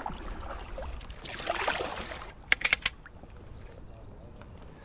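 A kayak paddle stroke splashing through the water, then four quick sharp knocks, then a small bird singing a run of high, quickly repeated chirps.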